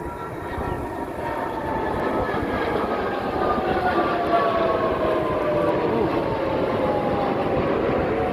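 Jet aircraft flying past, its engine noise growing steadily louder, with a whine that slowly falls in pitch as it goes by.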